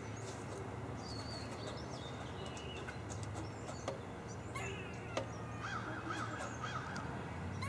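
A crow cawing, a quick series of caws about six seconds in, over a steady low background hum.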